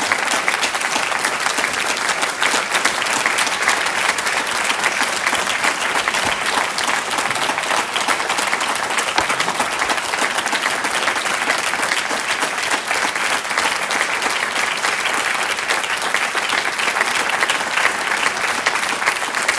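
Audience applauding steadily, a continuous clapping that holds at one level throughout.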